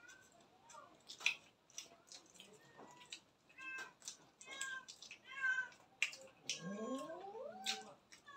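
A cat meowing several times during the second half, the calls bending in pitch, with one longer call rising in pitch near the end; scattered small clicks and smacks of people eating with their hands.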